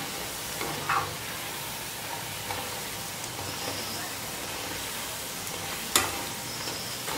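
Steady sizzling of strips of maida dough deep-frying in hot oil in a kadhai, with light taps of a perforated skimmer moving among them and one sharp click about six seconds in.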